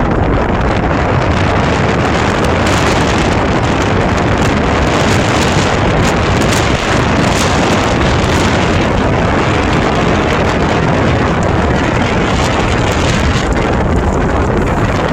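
Strong blizzard wind buffeting the microphone: a loud, steady rushing noise.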